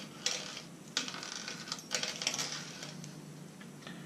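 Small fishing tackle and clear plastic zip bags being handled by hand: irregular light clicks and short crinkling rustles, the strongest about a second in and again around two seconds in.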